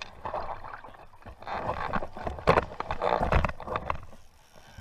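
Hooked walleye splashing and thrashing at the water's surface as it is brought into a landing net, in several irregular bursts of splashing, loudest about two and a half to three and a half seconds in.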